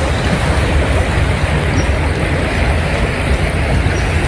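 Mountain valley stream rushing steadily, a loud even wash of flowing water.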